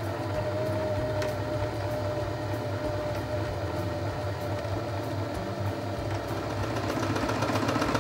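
Janome sewing machine's motor running steadily as it winds thread onto the bobbin, driven by light pressure on the foot pedal. It gets louder near the end.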